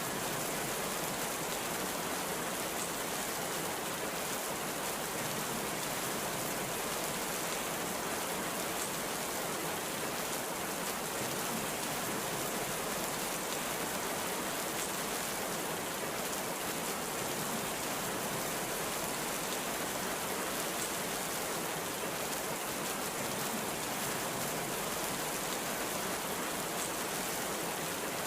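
Heavy rain falling steadily: an even hiss that does not change, with no thunder heard.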